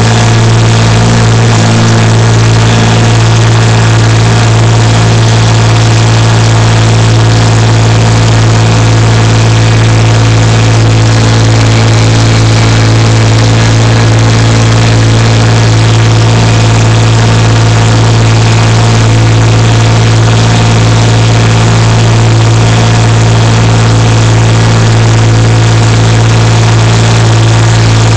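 Small tractor's engine running loud and close at a steady speed while the tractor is driven, holding one even pitch with no revving.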